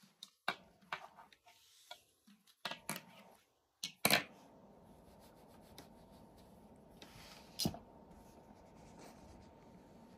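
A few light rustles and soft taps, the sharpest about four seconds in and another near the end, over a faint steady hiss.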